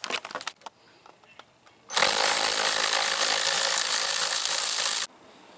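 A few light clicks, then a power driver spinning a 7 mm socket on an extension, running steadily for about three seconds and stopping abruptly.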